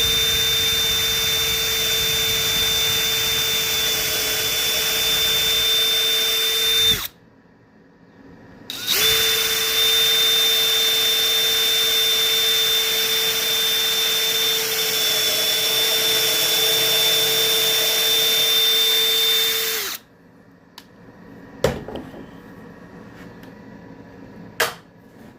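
Electric drill running at a steady, constant-pitch whine while boring handle holes into a wooden board through a drilling jig. It runs for about seven seconds, pauses briefly, then runs for about eleven seconds more. A couple of sharp knocks come near the end.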